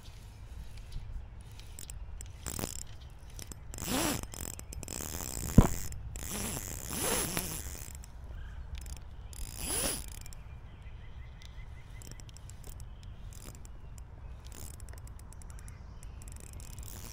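Ultralight spinning reel being cranked against a fish on the line, its mechanism whirring and ratcheting. Several short, louder buzzing spells come in the first ten seconds, and a single sharp click comes about five and a half seconds in.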